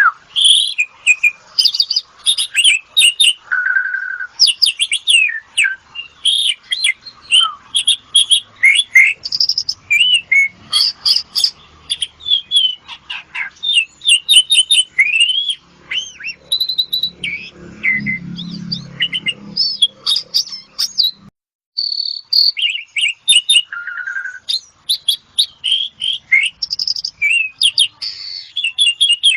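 Asian pied starling (jalak suren) singing a long, fast, unbroken run of varied chirps, whistles and short trills. The sound cuts out briefly about 21 seconds in.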